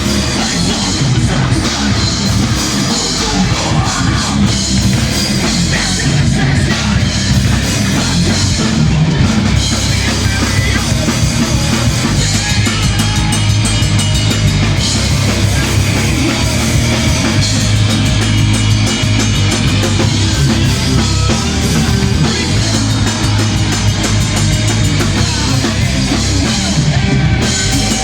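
Heavy metal band playing live: full-band rock music with a drum kit, loud and unbroken.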